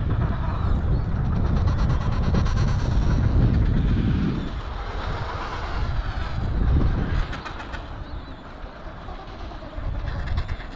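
Wind buffeting the microphone, a heavy low rumble that eases off about four and a half seconds in. Faint calls from the penguin colony sound beneath it.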